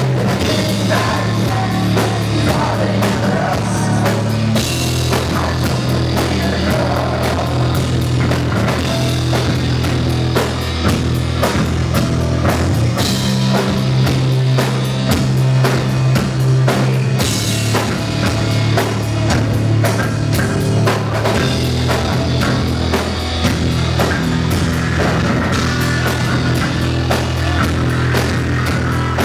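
Rock band playing live: a loud, driving drum kit over a heavy bass line that shifts notes every few seconds.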